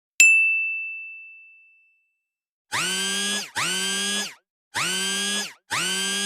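A single bright ding that rings out and fades over about a second and a half, then four identical buzzing electronic tones, each under a second long, in two pairs, each tone scooping up slightly in pitch as it starts.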